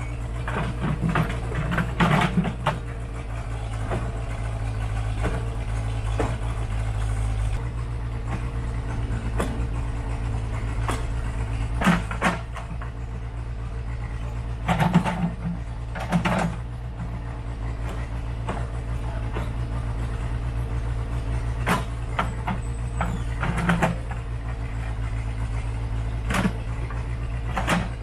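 Case 580C backhoe's engine running steadily as the hoe works, with scattered knocks and clatter of rocks and dirt as the bucket digs and dumps.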